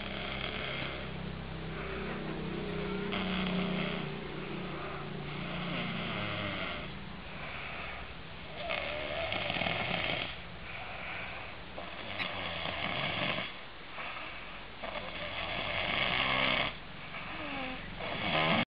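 A man snoring in his sleep, one rasping snore every two to three seconds.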